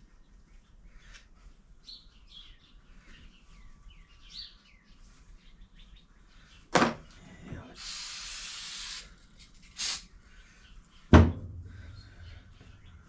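Faint birds chirping in the background while small parts are handled on a bench. A knock, then a hiss lasting about a second, a click, and a sharp, loud thunk near the end.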